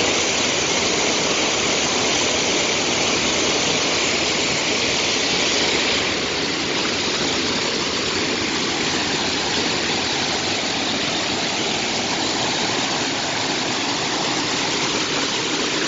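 Water pouring over a low mill dam in a wide, steady sheet and churning into the pool below: a continuous loud rush, slightly softer after about six seconds.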